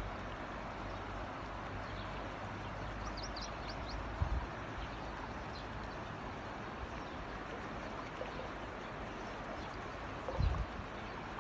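Steady rushing noise of floodwater flowing through a street, with two short low thumps, about four seconds in and near the end.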